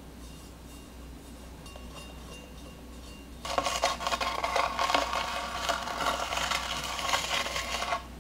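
A metal icing spatula scrapes against the whipped-cream side of a cake as it turns on a cake turntable. The rough, rasping scrape starts about three and a half seconds in and stops shortly before the end.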